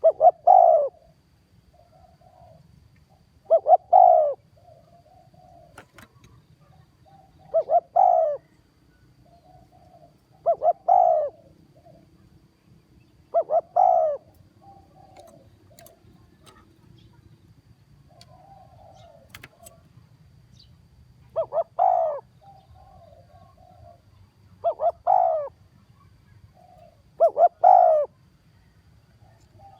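Spotted dove cooing. Its call repeats about every three to four seconds, with a longer pause midway; each call is a loud clipped coo of two or three quick notes followed by a softer, lower trailing coo.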